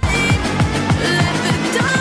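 Background music that cuts in abruptly, with a steady beat of low, falling bass notes about four times a second.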